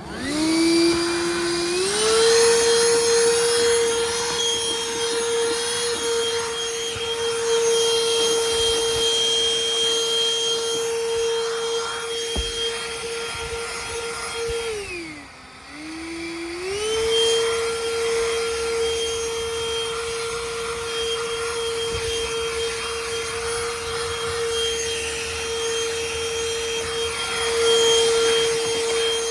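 BLACK+DECKER Furbuster handheld pet vacuum switched on, its motor spinning up to a steady high whine. About halfway through it winds down briefly and spins back up, then runs steadily again.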